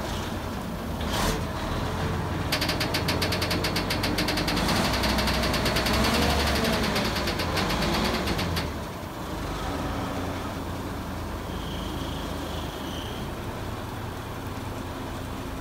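A 1985 Mack dump truck's diesel engine running while its hydraulic hoist works the dump body. From about two and a half seconds in it speeds up with a rapid, even clatter, its pitch rising and then falling. After about six seconds it drops back to a steadier, quieter idle as the bed comes down.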